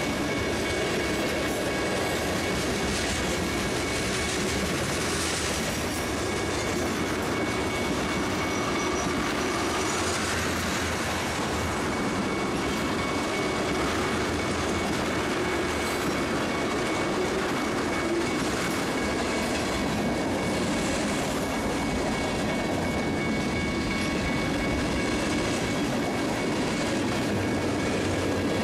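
A train rolling past at a steady speed: continuous rumble of rail wheels with clickety-clack over the rail joints and a faint, steady high-pitched wheel squeal.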